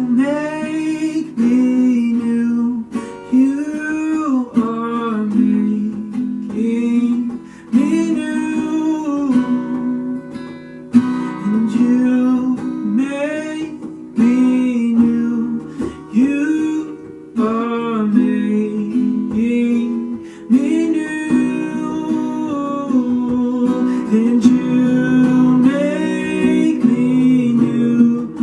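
Live worship music: a strummed acoustic guitar with a singer's voice carrying a slow melody over it.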